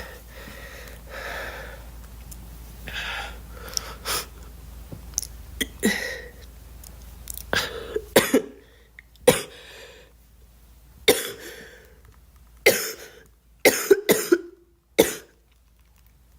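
A girl coughing. Several seconds of breathy throat sounds give way, about halfway through, to a string of short, sharp single coughs one to two seconds apart.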